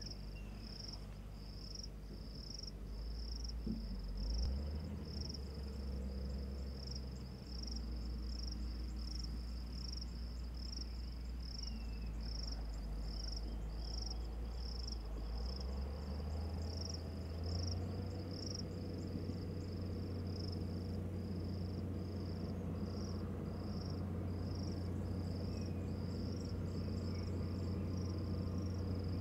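An insect calls steadily, a short high chirp repeated evenly a little more than once a second, over a low steady rumble.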